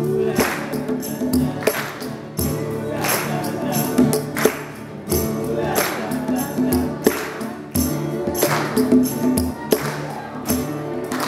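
Live acoustic group music: men singing together over a strummed acoustic guitar, with a steady beat of jingling percussion.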